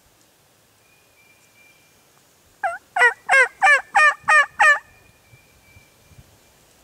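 Turkey yelps: a short note about two and a half seconds in, then a quick run of six loud yelps at about three a second.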